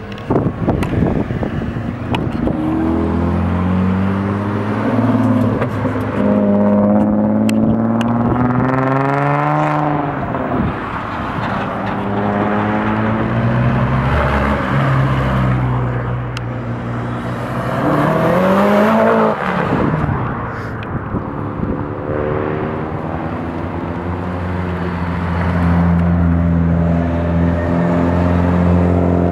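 Modified cars driving past one after another, among them a VW Jetta, a Mk1 VW Caddy pickup and a Mitsubishi Lancer Evolution. Engines accelerate with a sharply rising pitch about 9 seconds in and again about 19 seconds in. Near the end one engine runs steadily at low revs.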